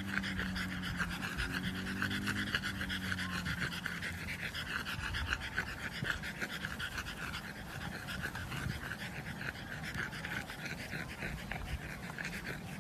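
French bulldog panting hard in quick, even breaths.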